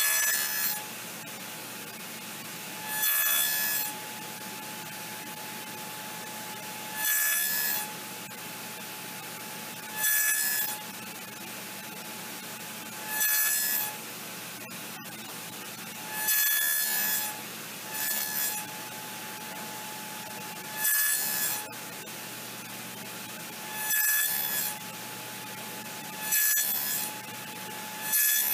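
Table saw running steadily with a constant hum from the spinning blade. About every three seconds a board on a jig is passed through it, each pass a short cutting rasp, about ten in all, as a row of narrow finger-joint notches is cut into the board's edge.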